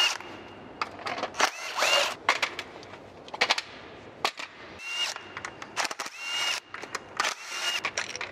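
Cordless power driver spinning bolts out of a BMW E46 330i's VANOS unit in several short bursts, each starting with a quick rising whine. Metal parts click and clink in the steel tray between bursts.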